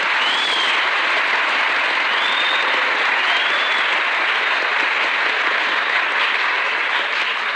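Audience applauding: dense, steady clapping from a large crowd, easing a little near the end.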